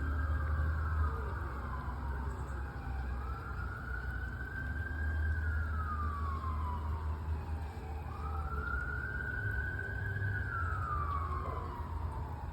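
Fire engine siren sounding a slow wail: each cycle rises quickly, holds high, then falls slowly, repeating about every four to five seconds, over a steady low rumble.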